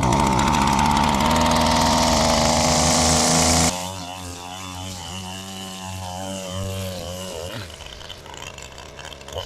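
Small gasoline lawn-care engine running loud and close, with a high hiss over its note; about four seconds in it drops abruptly and runs on quieter, its pitch wavering.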